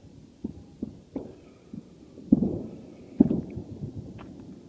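Scattered distant bangs of New Year celebration, each a dull thud with a short rolling echo: about five reports at uneven intervals, the two loudest a little over two and three seconds in.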